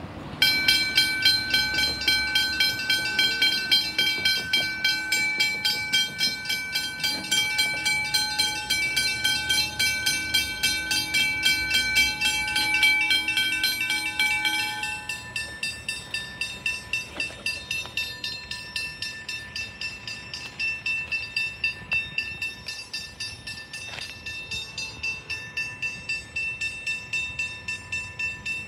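Level-crossing warning bells ringing with rapid, evenly repeated strokes as the crossing is activated. About halfway through the louder, higher-pitched bell stops and a quieter bell of a different pitch keeps ringing at the same pace.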